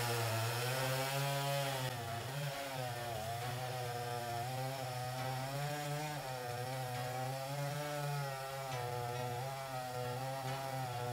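Two-stroke chainsaw cutting into a large log, its engine running steadily under load, the pitch wavering up and down as the chain bites in the wood.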